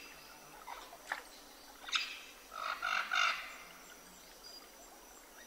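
Birds calling in outdoor ambience: a few short, faint calls about one, two and three seconds in.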